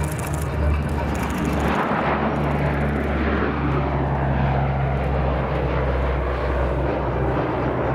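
C-130 Hercules's four turboprop engines and propellers droning as the aircraft flies past. The sound swells about two seconds in, then its pitch slides down as it goes by.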